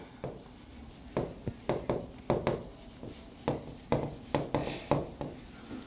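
A pen writing on a board: a string of short taps and scratchy strokes as words are handwritten.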